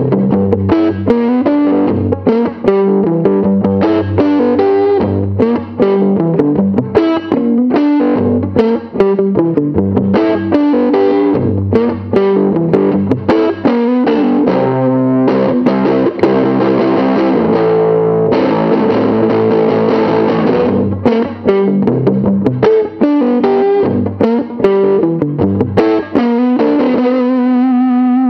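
1966 Epiphone Casino hollow-body electric guitar with P-90 pickups played through an overdriven amp: a riff of picked single notes and low-string figures, with a stretch of sustained strummed chords in the middle and a held, ringing note near the end.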